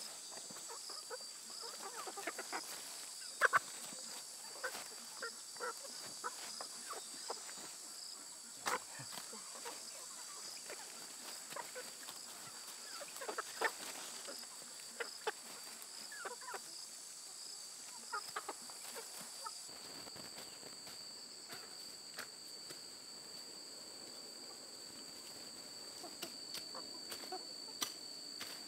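A steady, shrill chorus of insects in the background. Over it come short irregular scrapes and taps of hand-digging in loose soil and brief clucks of chickens foraging, busiest in the first two-thirds and sparser near the end.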